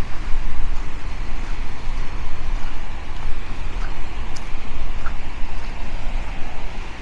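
Strong wind buffeting the microphone in a heavy, gusting rumble, over the hiss of small waves breaking along the shore.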